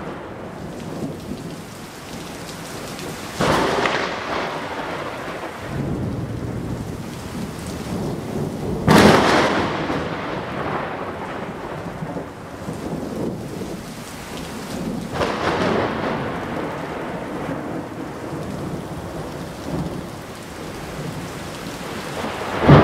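Close thunder during a heavy downpour. Steady rain hiss, with four sudden thunder cracks, each rolling off into a fading rumble: one a few seconds in, the loudest about nine seconds in, another about fifteen seconds in, and a last sharp one right at the end.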